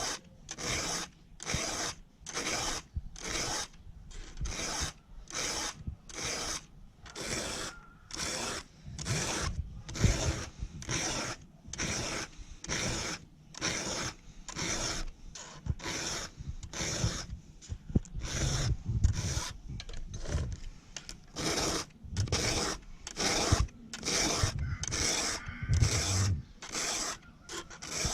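Chainsaw chain being sharpened by hand with a file: steady, even strokes of the file across the cutters, about two a second.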